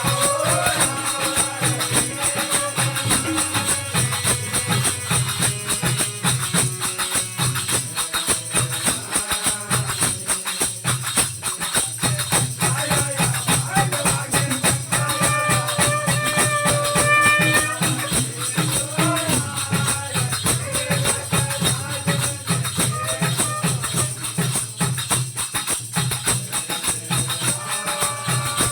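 Devotional aarti music: fast, steady jingling percussion like hand cymbals or a tambourine over a regular drum beat, with a few long held melodic notes.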